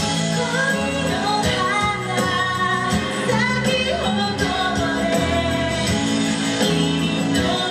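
Live pop song: a singing voice carrying the melody over instrumental accompaniment.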